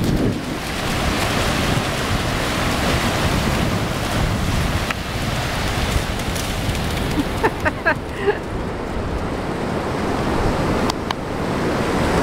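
Ocean surf washing up the beach, with wind buffeting the microphone. A few brief, high pitched sounds come about eight seconds in.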